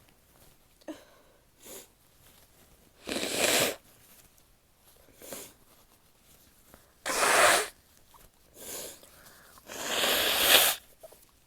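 A woman sneezing three times, with short sniffs in between; the last sneeze runs longer, about a second.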